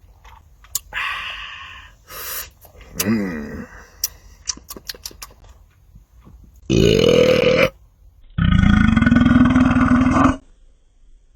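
A man belching loudly after gulping Mug root beer: a short belch a little past the middle, then a long belch of about two seconds that rises slightly in pitch. Before them come a few small clicks and a closed-mouth "mm".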